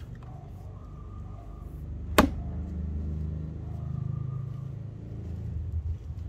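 A single sharp chop of a True Temper Pulaski axe biting into a wooden stump about two seconds in, over a steady low rumble.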